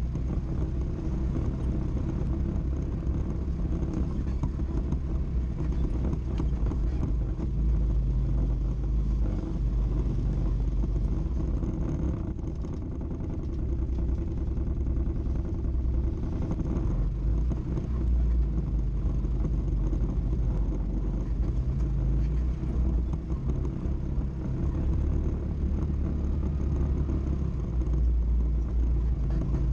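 ATV engine running at low speed over a rocky trail, a steady drone with a deep rumble underneath. It eases off briefly about twelve seconds in.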